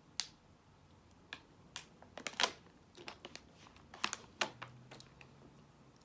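Irregular clicks and taps of an eating utensil against a plastic takeout food container while eating, about a dozen in all, the loudest about two and a half seconds in.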